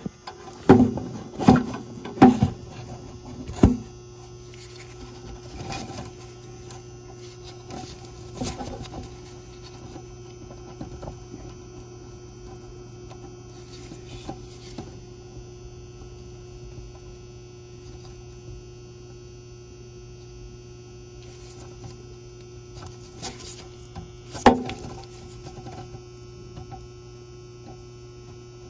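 Steady electrical hum, with sharp clicks from handling crimped wire connectors and contactor terminals: several in the first few seconds and one loud click about 24 seconds in.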